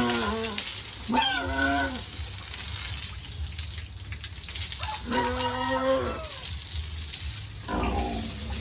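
Pigs calling: four drawn-out, pitched squeals of about a second each, spaced unevenly, the first two close together near the start and the others about five seconds in and near the end.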